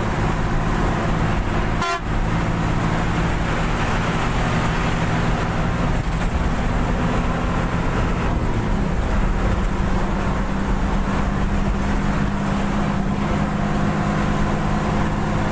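Bus engine running steadily at highway speed, heard from inside the cab, with road noise from the wet road. There is a brief break about two seconds in, and the engine note drops a little around nine seconds in.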